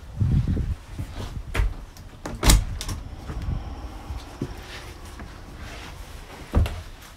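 Glass bifold doors being opened: handle and latch clicks, a sharp clack about two and a half seconds in and a knock near the end, over low rumbling handling noise.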